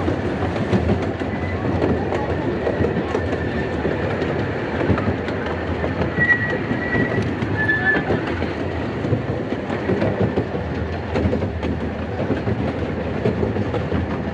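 Cars of a 15-inch gauge miniature railway rolling along the track, the wheels clattering steadily over the rails, with a brief high wheel squeal on a curve about six to eight seconds in.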